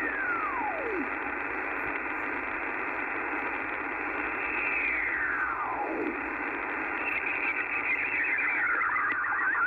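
Icom IC-R70 shortwave receiver's speaker hissing with band noise as it is tuned up the 20-metre amateur band. Twice a whistle falls steeply in pitch as the tuning sweeps past a signal, and near the end a warbling slow-scan television (SSTV) signal tunes in.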